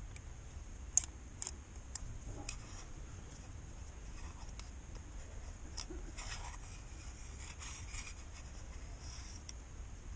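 Handling noises from a plastic oil filter housing cap worked in gloved hands: a few sharp clicks in the first seconds, the loudest about a second in, then soft scratching and rubbing.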